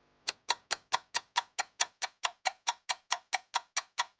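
Clock-like ticking sound effect, about four to five even ticks a second, a countdown timer while the learner chooses the answer.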